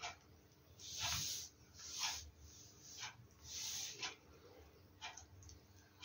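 African grey parrot making a few short, faint, hissing and scratchy noises about a second apart, with small clicks between them.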